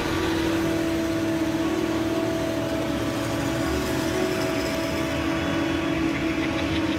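Self-propelled forage harvester chopping standing corn for silage, with the trucks beside it running: a steady machinery drone with a held, even whine.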